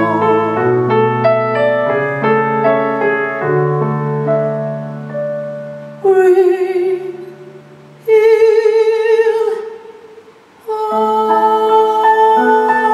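Slow piano accompaniment, then a male singer holding two long, high notes with vibrato, one about six seconds in and one about eight seconds in, each dying away into a brief lull before the piano comes back in.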